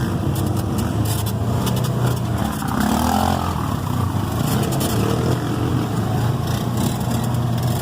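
Off-road vehicle engine running steadily while riding, with scattered knocks and rattles.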